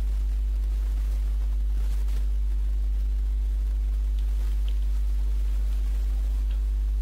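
Steady low electrical mains hum with its overtones, the recording's background hum. A few faint ticks about four to five seconds in.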